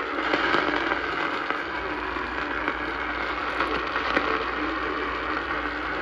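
AM radio static from a Sangean weather-alert radio tuned to 1140 kHz: a steady hiss with scattered crackles.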